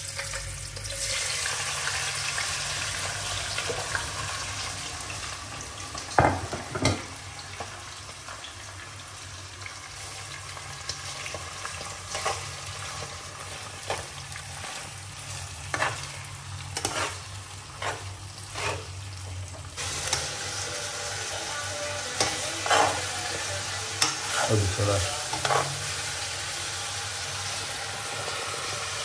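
Sliced onions, green peppers and meat frying in hot oil in a nonstick pot with a steady sizzle, while a metal spoon stirs them, knocking and scraping against the pan again and again.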